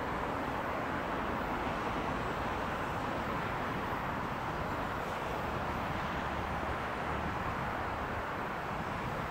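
Jet engines of a Boeing 737-700 Business Jet, CFM56-7 turbofans, at takeoff power as the aircraft lifts off and climbs away, making a steady rushing noise.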